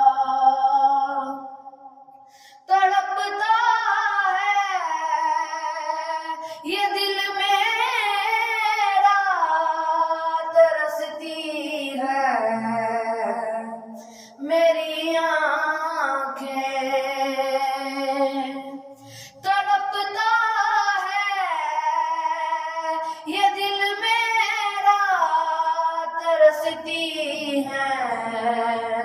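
An Urdu naat, an Islamic devotional song, sung by a solo high voice in long, wavering, ornamented phrases, breaking off briefly three times between lines.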